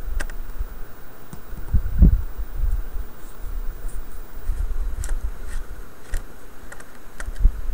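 Scattered light clicks and taps of small laptop parts being handled and worked free during disassembly, over a low handling rumble and steady background noise.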